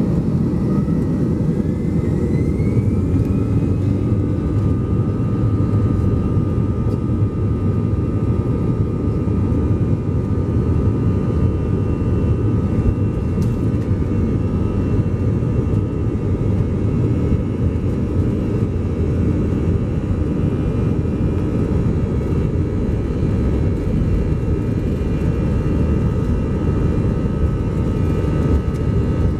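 Cabin noise of an Airbus A321 taxiing, heard from a seat over the wing: a steady low rumble with the whine of its CFM56 jet engines, which rises in pitch over the first few seconds as thrust is added and then holds steady.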